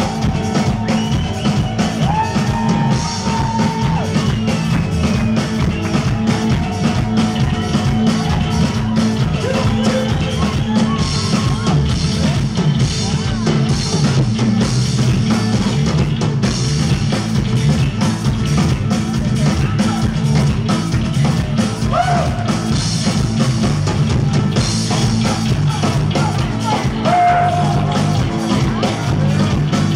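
Live Tuareg desert-blues rock band playing loudly: electric guitars, bass and drum kit in a dense, steady groove, heard from among the audience.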